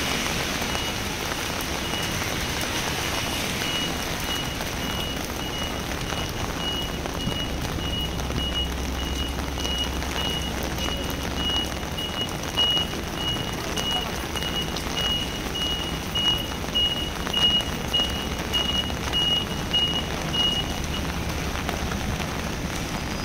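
High electronic warning beep repeating a little under twice a second for about twenty seconds, then stopping, over a steady hiss of heavy rain and a low traffic rumble.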